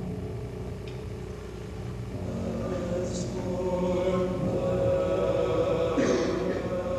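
Choir singing long held notes, swelling louder from about two seconds in.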